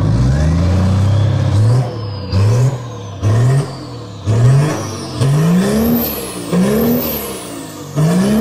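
An engine revved hard: one long climbing rev, then a run of short sharp revs, about one a second, each rising in pitch and dropping back.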